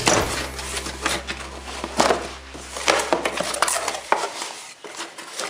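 Packaging of a new angle grinder being handled and opened: irregular rustling, clicks and light knocks of cardboard and plastic. A low hum under it stops about four seconds in.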